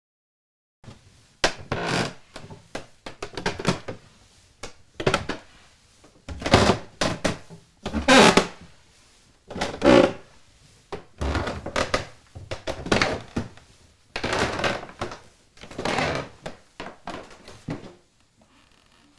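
A run of irregular thumps and knocks, roughly one a second, some with a short rattling tail.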